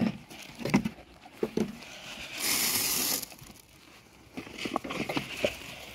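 Sheep eating feed from a trough: scattered crunching and clicking, with a rustle lasting about a second midway through.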